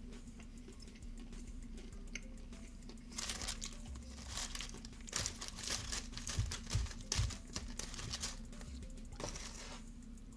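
Wax paper liner of a takeout wings basket crinkling and rustling in repeated bursts as a hand digs through it, starting about three seconds in.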